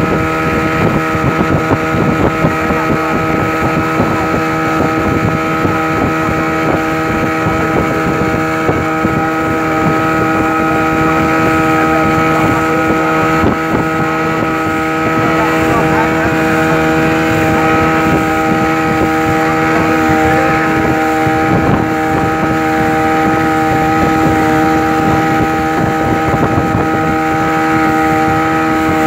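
Speedboat engine running at a steady high speed with a constant whine, over the rush of water and spray from the hull cutting through the waves.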